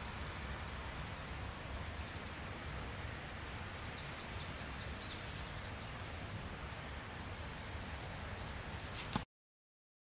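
Quiet outdoor ambience: a steady high insect trill with a few faint chirps and a low rumble underneath. It cuts off suddenly about a second before the end.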